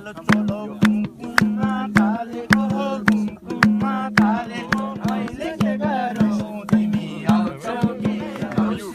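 Music: a voice singing over a fast hand-drum rhythm, with sharp strikes and a repeating low drum note.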